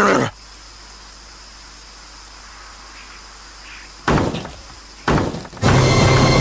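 Low steady hiss, broken about four seconds in by two sudden thuds a second apart, then a loud growl from the adult gorilla near the end.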